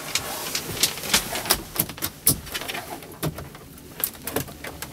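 Sharp clicks and taps of plastic dashboard trim and the storage shelf lid being handled in a truck cab, with a pigeon cooing in the background.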